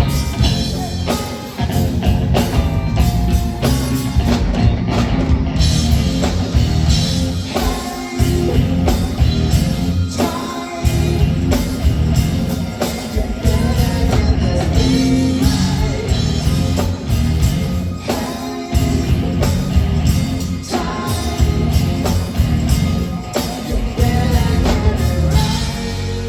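A live rock band playing a song: drum kit, guitars and a singing voice, loud and dense throughout.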